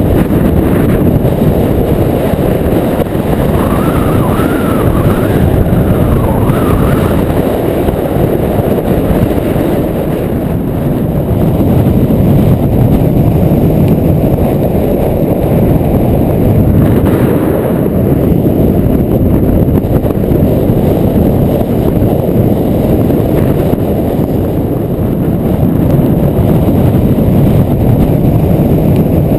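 Strong wind buffeting the microphone: a loud, steady low rumble that swells and eases a little.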